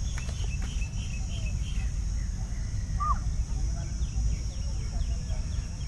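Open-air ambience: a steady high insect drone, scattered faint bird chirps and one short call about three seconds in, over a constant low rumble.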